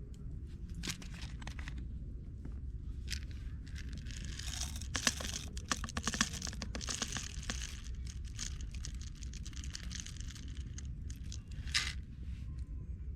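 Paper crinkling and rustling in irregular bursts, densest from about four to seven seconds in, with a sharp click near the end, over a steady low rumble.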